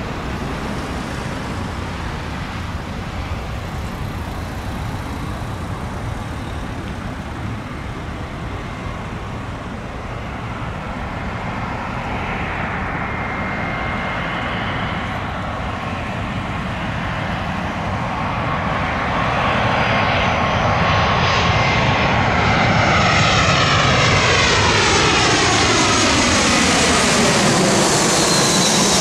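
British Airways Airbus A319 jet airliner on final approach, its engine noise growing louder as it comes in and passes low overhead. In the last seconds, as it crosses overhead, the sound takes on a swooshing, phasing sweep that falls in pitch and begins to rise again near the end, with a thin engine whine above it.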